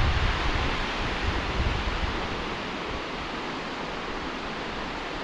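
Steady rush of flowing water from the cascading natural pools, with wind buffeting the microphone in low gusts, strongest near the start.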